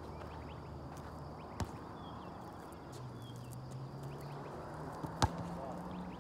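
Two sharp knocks from a basketball, a smaller one about a second and a half in and a louder one near the end, over a steady low hum.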